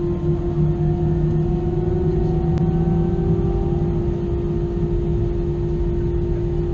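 Airbus A320 jet engines running, heard from inside the cabin as a steady hum over a low rumble, one tone of the hum slowly rising in pitch partway through.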